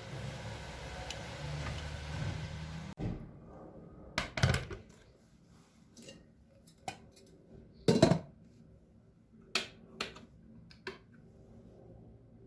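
A steady low hum for about three seconds that cuts off abruptly, then a string of separate short knocks and clinks of small hard objects being handled and set down, the loudest about eight seconds in.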